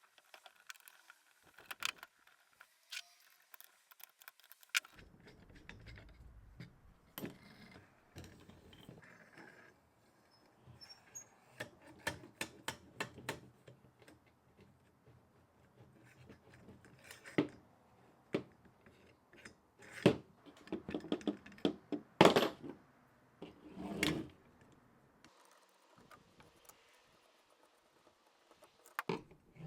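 Scattered metallic clicks, clinks and knocks of hand tools and pump parts being handled during disassembly. The loudest knocks fall a little past twenty seconds in.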